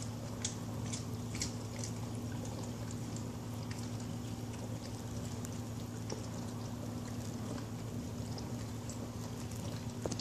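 A Wheaten Terrier chewing a treat: a few crisp crunches in the first two seconds, then quieter, wet chewing and licking. A steady low hum runs underneath.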